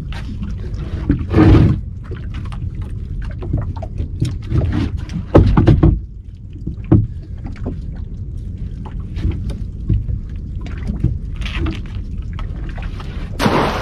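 Wind on the microphone and water lapping a small boat's hull, with knocks and rattles of a wire crab pot being handled and baited on deck. Near the end a sudden louder rush of noise as the pot goes over the side into the water.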